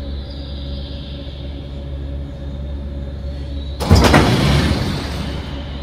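Beech E18S main landing gear dropping free after the emergency gear clutch is released, swinging down and slamming into place with a loud clattering bang about four seconds in that dies away over a second or so. A steady low hum runs underneath.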